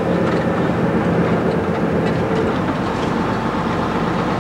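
Tour coach engine and road noise heard from inside the cabin while driving through city traffic: a steady rumble with a droning hum. The low rumble deepens a little past halfway.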